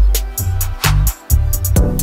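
Instrumental electronica and hip-hop music: a steady beat of kick drum and crisp high percussion over deep bass.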